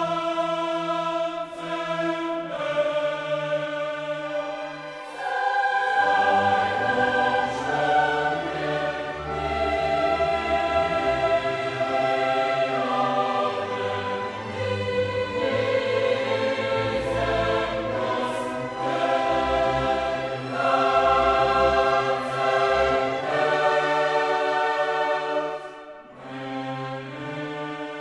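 Background choral music: a choir singing slow, held chords, with a deep bass part coming in about five seconds in.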